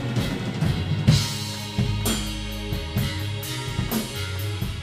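A rock band playing: a Ludwig drum kit's bass drum, snare and cymbals struck in a busy pattern over held low pitched notes that change every second or so.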